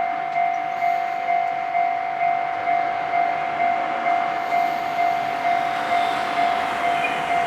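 Japanese railway level-crossing warning bell ringing, an electronic two-tone ding repeating evenly about twice a second. A rushing noise builds underneath it in the second half.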